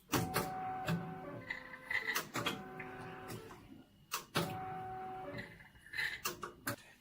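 Kinghawk SMART-I hematology analyzer's internal motors and valves working through a diluent flush cycle. A pitched motor whine with clicks runs in three similar strokes, and a few clicks follow near the end.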